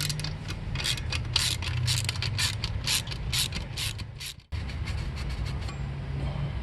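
Socket ratchet wrench clicking in quick back-and-forth strokes on a 12 mm bolt, about three to four strokes a second. The clicking stops suddenly about four and a half seconds in.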